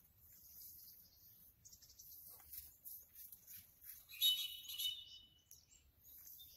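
A short, loud, high-pitched blast on a retriever handler's dog whistle about four seconds in, signalling a dog sent out on a blind retrieve, over a faint high hiss.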